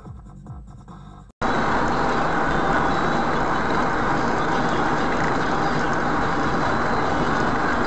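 Steady, loud road and engine noise of a car driving on a multi-lane road, heard from inside the car. It starts abruptly about a second and a half in, after a quieter stretch.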